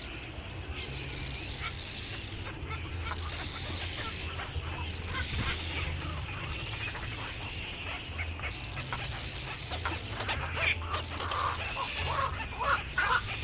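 Many birds calling over one another in short, busy calls, growing louder and more frequent near the end, over a low steady hum.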